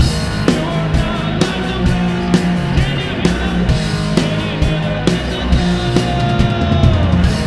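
Rock song with electric guitar, bass and drums, the drums keeping a steady beat. A held guitar note bends downward near the end.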